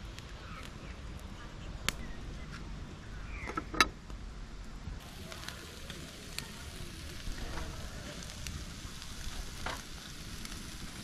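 Wood fire crackling in a fire pit, with two sharp pops in the first few seconds. From about five seconds in, marinated galbi ribs sizzle on a wire grill over glowing charcoal, with small crackles.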